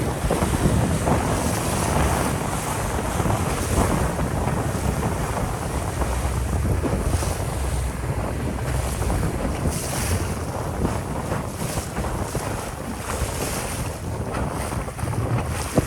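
Wind buffeting the microphone on a moving boat, over the steady rush of water and waves along the hull.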